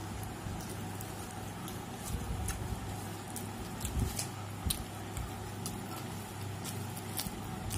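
Eating by hand: chewing and lip-smacking, with scattered short sharp clicks as mouthfuls of biryani are taken from plates with the fingers, over a steady low hum.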